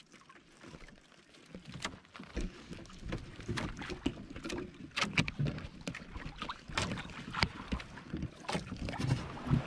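Small fishing boat rocking in rough sea: water sloshing and slapping against the hull, with irregular knocks and wind on the microphone. It is quiet for the first second or so, then the knocks and splashes come thick and grow louder.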